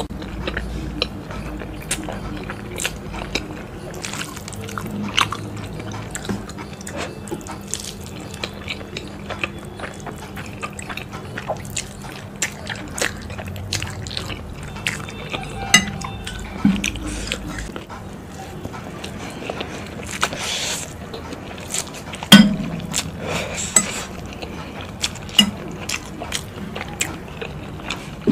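Close-miked eating of spicy instant noodles: wet chewing, squelching and slurping, with sharp clinks of a fork against a glass bowl. The loudest clink comes about two-thirds of the way through.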